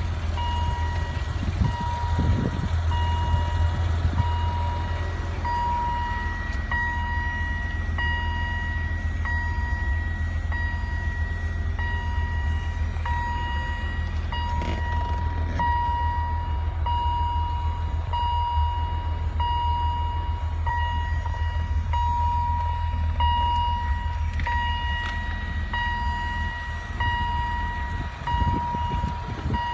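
1990 BMW 325i's dashboard warning chime beeping over and over at one steady pitch while the driver's door stands open. Under it is a steady low hum from the car's idling engine.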